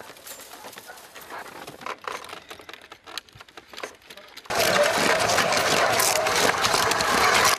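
Faint clicks and rattles of wire-mesh traps being handled and loaded onto a sledge. About four and a half seconds in, a sudden loud, steady noise starts: a horse-drawn sledge under way over snow.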